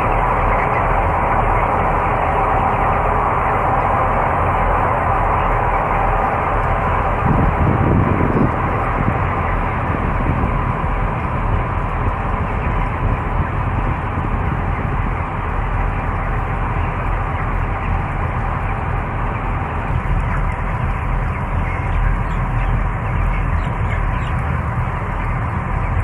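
Cone ventilation fans of an enclosed broiler house running with a steady drone, under the constant murmur of a large flock of three-week-old broiler chickens.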